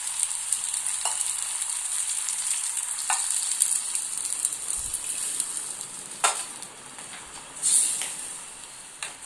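Hot fried masala and chicken in a steel kadai sizzling as water is poured in, the hiss dying down near the end. A few sharp clicks of metal on metal sound along the way.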